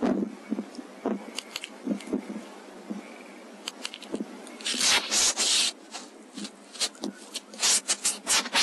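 Handling noise picked up in the thermal scope's own recording: scattered clicks, rubs and scrapes, with a louder rustling burst about five seconds in and a run of clicks near the end.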